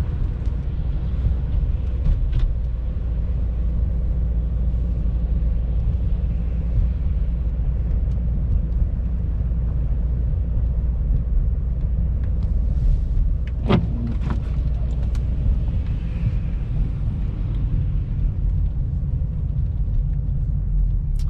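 Steady low rumble of a BMW X5 driving, heard from inside the cabin: engine and tyre noise on a wet road. There is one brief sharp sound about 14 seconds in.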